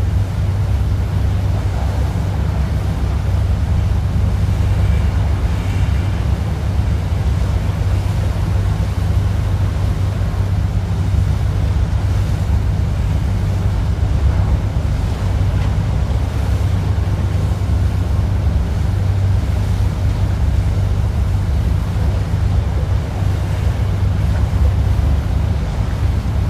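On board a tour boat under way: a steady low rumble from the engine and wind on the microphone, with water washing past the hull.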